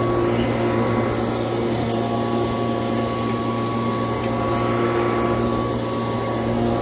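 1986 Kirby Heritage II upright vacuum running with a steady motor hum as it is pushed over a rug. A few faint crackles come as scattered debris is sucked up through the machine.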